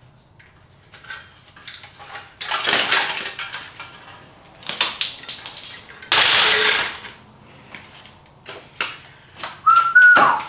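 Plastic and metal car parts clicking, rattling and scraping as a wrecked car's front end is taken apart by hand, with a louder clatter of parts lasting almost a second about six seconds in. Near the end a short high whistle that drops off sharply.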